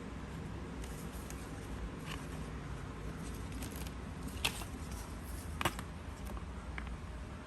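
Small clicks and taps from handling paper and craft tools, two sharper ones about four and a half and five and a half seconds in, over a steady low hum.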